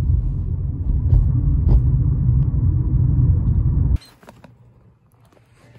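Loud, low rumbling noise that cuts off abruptly about four seconds in, followed by a quiet stretch with a few faint clicks.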